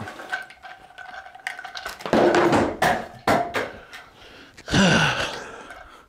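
A flexible stainless-steel shower hose and the hand shower head's parts clinking and rattling as they are handled and laid on a wooden table, with scattered sharp clicks. The loudest rattles come about two seconds in and again near the end.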